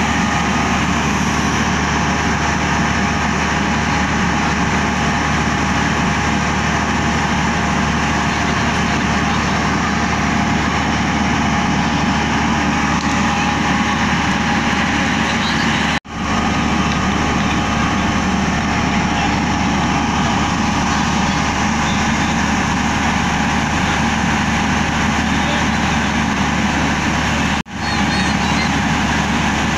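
Diesel engine of a standing train idling with a steady hum. The sound drops out briefly twice and fades back in.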